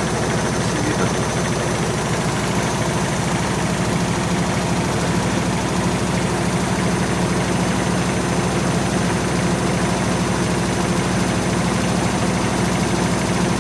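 Washing machine spinning its drum at speed, its cabinet shaking hard with a steady, fast rattling hum. The side panel is vibrating even with newly fitted dampers, though the machine does not walk.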